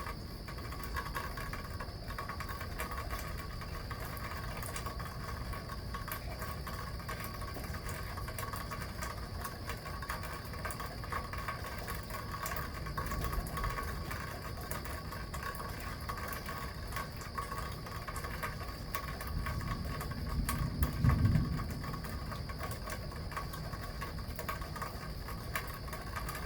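Steady wind noise on a phone microphone during a thunderstorm, with a low rumble of thunder swelling and fading about twenty seconds in.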